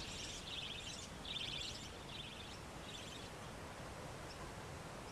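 Faint outdoor ambience with a series of short, high-pitched buzzy chirps, about two a second, that fade out after about three seconds over a low hiss.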